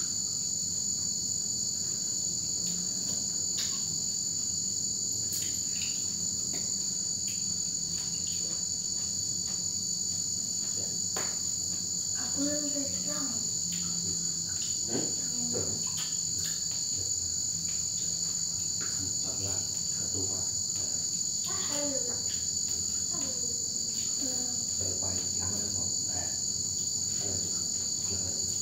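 Crickets chirring in a continuous high drone that stays steady throughout, with a few faint clicks over it.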